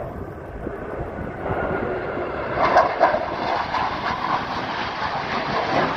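Blue Angels jets flying over in formation: a jet roar that swells and grows brighter about halfway through, then holds.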